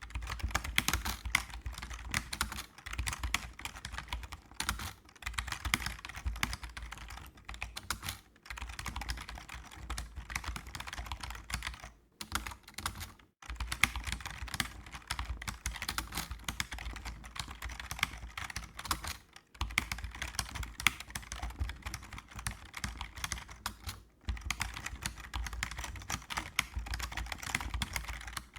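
Computer keyboard being typed on in rapid, continuous bursts of key clicks, broken by a few short pauses, over a low steady hum.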